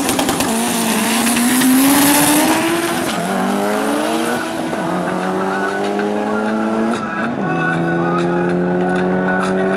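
Two cars, one a Mitsubishi Lancer Evolution, launching hard off a drag-strip start line. There is tyre noise at the launch, then the engines rev up at full throttle, each rise in pitch cut off by a drop at a gear change three or four times as they pull away.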